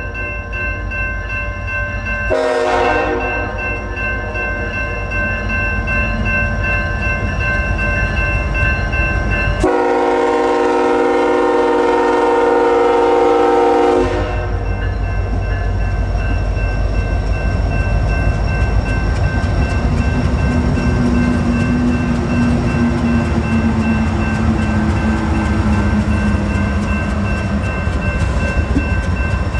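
Union Pacific freight locomotive's air horn sounding a short blast, then a long blast that cuts off as the locomotive reaches the crossing, over the steady ringing of the grade-crossing bell. The locomotives then pass close by with a loud engine rumble and wheel noise.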